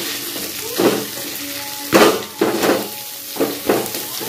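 Fish pieces sizzling in hot oil in a wok while a metal spatula scrapes and turns them in several strokes, the loudest about two seconds in.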